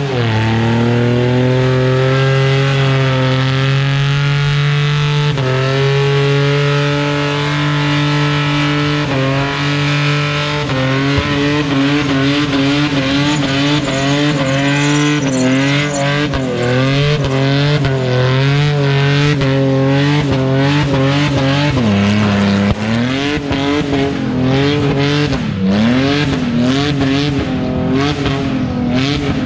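Holden VS Commodore ute doing a burnout, its engine held at high revs while the rear tyres spin and squeal on the pad. The revs hold steady for the first several seconds, then rise and fall over and over as the driver works the throttle, with a brief lift-off about two-thirds of the way through.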